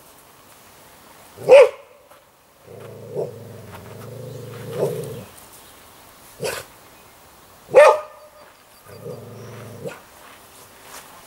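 A dog barking loudly three times, with two long low growls between the barks, as it faces a person stooping toward it threateningly.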